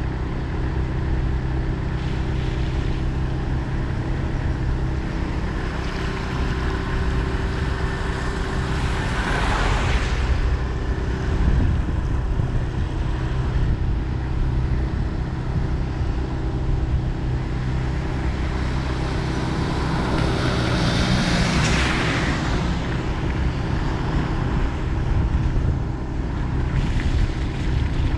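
Steady engine and road noise of a vehicle driving along a highway, with a low hum throughout. Twice, about ten seconds in and again just past twenty seconds, a broader rushing sound swells up and fades.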